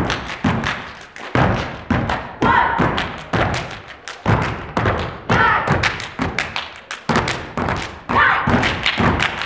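A step team stamping their boots on a wooden stage in unison, in a fast, even rhythm of sharp thuds, with brief shouts from the steppers now and then.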